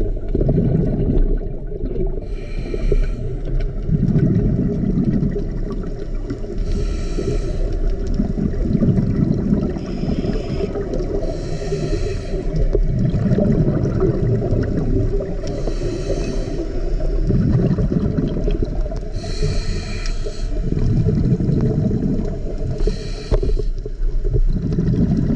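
Scuba diver breathing through a regulator, heard underwater: a short hissing inhale roughly every four seconds, each followed by a low rush of exhaled bubbles, over a steady low rumble of water.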